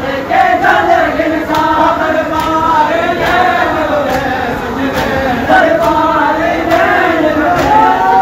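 A group of men chanting a noha in unison, the many voices rising and falling together, with a sharp beat keeping time a little more than once a second.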